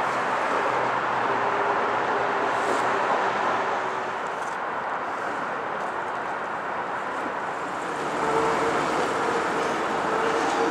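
GO Transit commuter train approaching, cab car leading with the MP40PH-3C locomotive pushing: a steady noise of the train on the track, with a faint steady tone coming in near the end.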